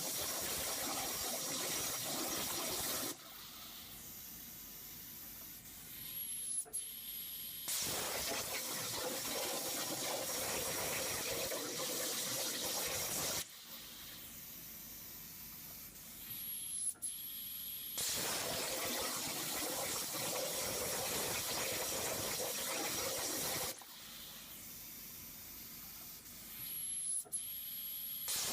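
A Hypertherm 300-amp plasma torch on a CNC water table cutting: a loud, steady hiss while the arc cuts, broken three times by a quieter gap of about four seconds. Each gap ends with a sharp crack as the arc fires again, and then the hiss returns.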